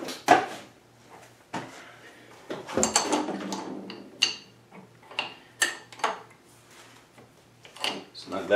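Scattered metallic clinks and clicks of a wrench on the cross-feed screw housing of a South Bend 13-inch lathe's cross slide as it is tightened down, with about ten separate knocks and a longer scraping clatter about three seconds in.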